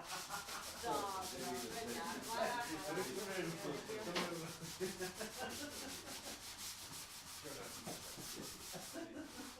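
Sandpaper rubbed back and forth by hand in quick, even strokes, several a second, stopping near the end.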